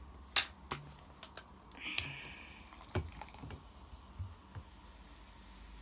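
A few scattered sharp clicks and light taps in a small room, the loudest about half a second in, with a brief hiss around two seconds in.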